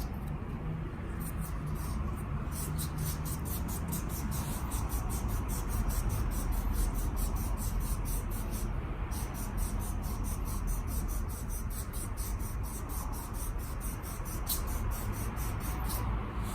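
Rapid, repeated scrubbing strokes, several a second, over a low steady hum, as parts of the scooter's rear wheel assembly are cleaned in sped-up footage. The strokes pause briefly twice.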